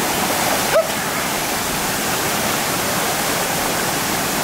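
Steady rush of small waterfalls cascading into a rocky stream pool, mixed with water splashing as people wade and swim through it. A brief sharp sound stands out about a second in.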